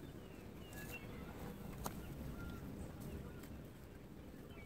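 Small birds chirping in short calls in the background, with a single sharp click about two seconds in.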